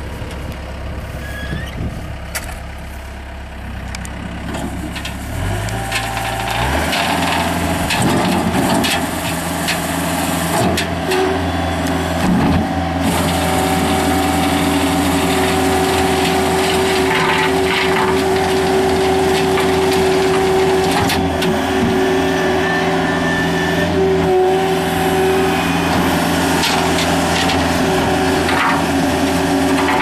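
Skid steer loader engine idling, then revving up about six seconds in and running steadily at high speed as it drives a New Holland Preparator landscape rake, whose toothed drum churns through the soil with scraping and rattling of dirt and stones.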